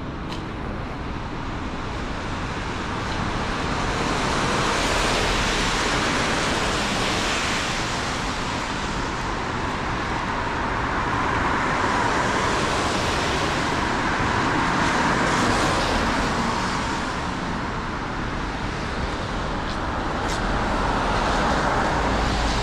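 Street traffic: cars passing on a city road, the noise of engines and tyres swelling and fading about three times.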